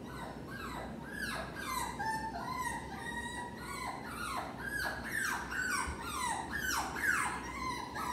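Jack Russell terrier whining over and over, a run of high cries that mostly slide downward with a few held notes, the distress of a dog left home alone.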